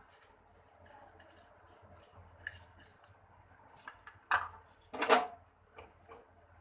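Spatula stirring besan and maida in ghee in a kadhai, with scattered scrapes and clinks against the pan, the loudest a little past halfway.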